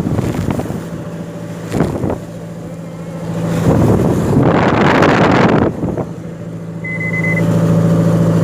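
A boat's engine running at a steady pitch while a loud rush of wind and sea surges over it for about two seconds midway, with a shorter surge earlier. A brief high beep sounds near the end.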